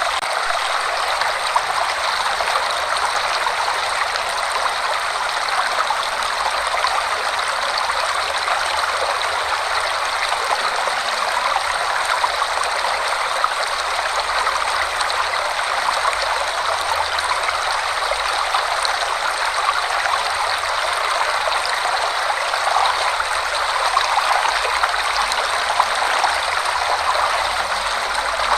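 Forest waterfall rushing in a steady, even roar of falling water.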